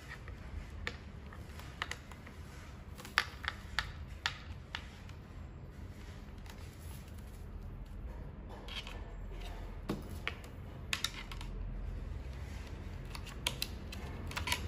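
Scattered light clicks and taps from hands handling a servo lead and the plastic tail section of a model aircraft while feeding the wire through with a thin rod, over a low steady hum.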